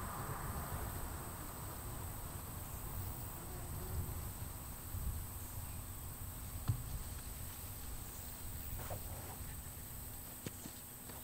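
Faint outdoor ambience: a steady high insect buzz over a low rumble, with a few soft clicks.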